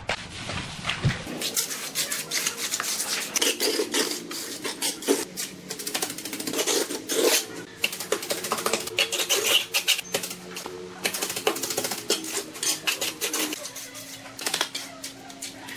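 Mason's trowel working wet cement mortar: a dense, irregular run of scrapes, pats and sharp clicks as the blade spreads and slaps the mortar and knocks against the form.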